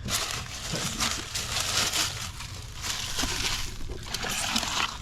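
Dry bird-nest material crunching and rustling as it is pulled out by hand from a car's engine bay.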